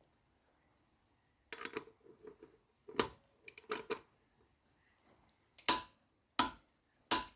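Click-type torque wrench on a CV axle nut, set to 159 ft-lb, clicking as it reaches the set torque. Some lighter metallic clicks and clanks come first, then four sharp clicks near the end, about two-thirds of a second apart.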